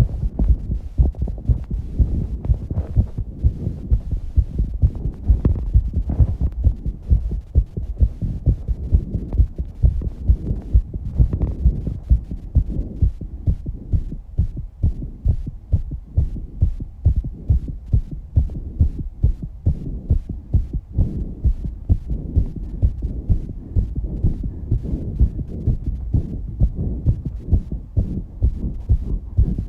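A fast human heartbeat after exercise, quick steady thumps throughout, with heavy breathing heard over it at times, most in the first half.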